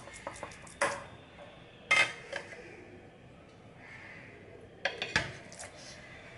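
Ceramic dishes and a metal spoon clinking: a few sharp knocks and clinks of a spoon against ceramic bowls and of crockery set down on a stone countertop. The loudest comes about two seconds in, and a close pair about five seconds in as a ceramic bowl is turned upside down onto a plate.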